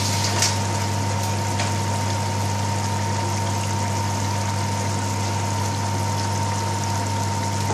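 A pot of lamb curry simmering on a gas burner: a steady hiss under a constant low hum.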